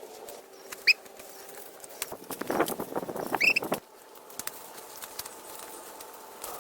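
A short, high chirp about a second in. Then nearly two seconds of rustling and scraping, with a second short chirp near the end of it.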